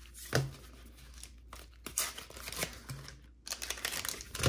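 Foil Pokémon booster pack wrapper crinkling and tearing in the hands, in a string of irregular sharp crackles, the loudest about half a second in.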